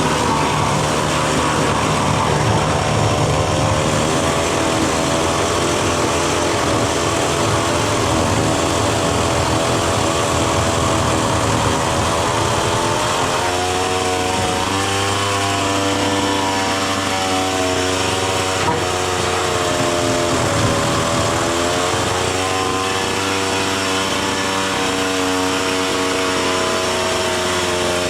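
Power saw cutting through the roof to make the hole for a chimney pipe, running without a break, its motor pitch rising and falling as it works under load.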